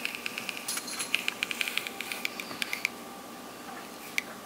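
Fingertips pressing and rubbing across a screen protector on an iPhone 15 Pro Max to stick it down: a rapid run of small squeaks and ticks for about three seconds, then one more tick near the end.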